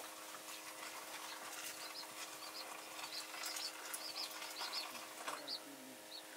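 Many short, high chirps from small birds over a faint steady hum, while hot water is poured from a kettle into a metal bowl.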